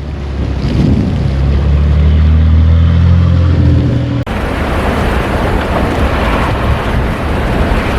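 A steady low drone, rising slightly in pitch, that cuts off after about four seconds. It gives way to strong storm wind blowing against the microphone, a dense, even rushing.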